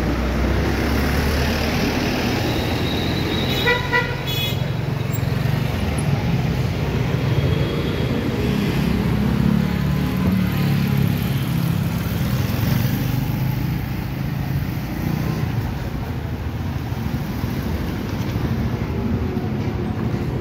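Street traffic: motor vehicles running past, with a brief horn toot about four seconds in and a louder engine passing through the middle.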